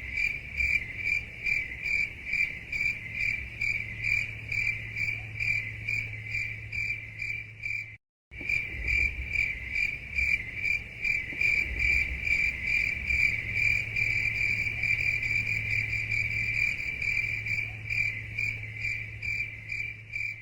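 Crickets chirping in a steady, even rhythm of about three chirps a second, with a high, clear pitch; the sound drops out for a moment about eight seconds in.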